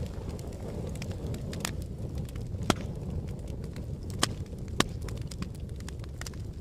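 Fire crackling: a steady low rumble of burning with frequent sharp crackles and pops, three of them louder, about three, four and five seconds in.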